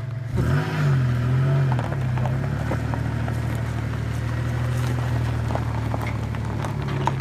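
An engine running, revving up briefly about half a second in and then settling back to a steady hum over a rushing noise.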